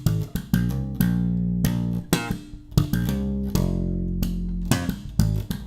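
ESP LTD B-155DX five-string electric bass playing a short riff: long held notes alternating with quick runs of short notes, each note starting sharply.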